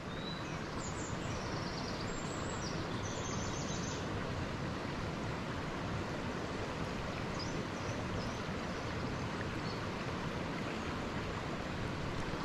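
A swollen, fast-flowing river rushing over a shallow run: a steady, even sound of running water.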